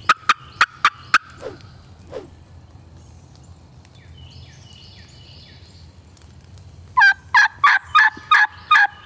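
Turkey yelps on a mouth diaphragm call, used to strike a gobbler: a quick run of five sharp yelps, then after a pause a louder run of six about seven seconds in.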